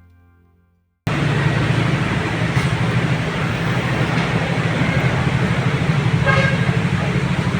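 Background music fades out, then a car's engine and running noise cut in suddenly and continue steadily, with a short faint tone a little past the middle.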